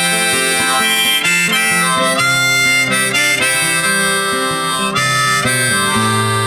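Background music: an instrumental break led by harmonica over guitar.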